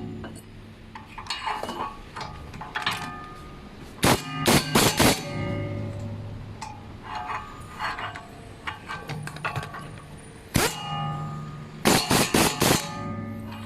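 Metal tools clanking on a car's rear wheel hub while its mounting bolts are tightened: sharp, ringing strikes, some in quick clusters of three or four, over a steady low hum.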